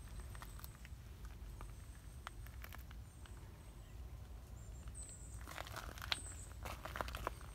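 Faint rustling and crackling clicks from a tuxedo cat being stroked by hand and moving about on leaf litter, busiest near the end. Two short high chirps come about five and six seconds in.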